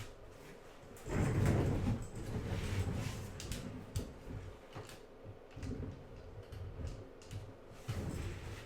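Objects being handled on a workbench: a louder scrape about a second in, then scattered knocks, clicks and rubbing, over a faint steady hum.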